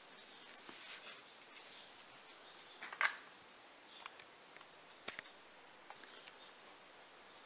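Light handling noises of 3D-printed plastic parts and a threaded steel bolt being fitted into the stand's arm: soft rubbing with a few short clicks and taps, the loudest about three seconds in and another sharp click about five seconds in.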